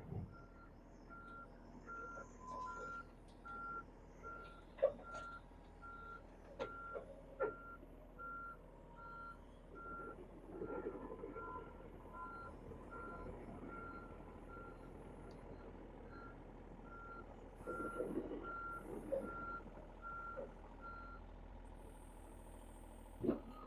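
John Deere 35G compact excavator's travel alarm beeping at about two beeps a second as the machine tracks onto a trailer, with a few clanks among the beeps. The beeping stops about 21 seconds in.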